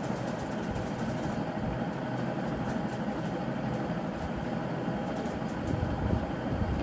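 Steady low background hum and rumble, with no speech.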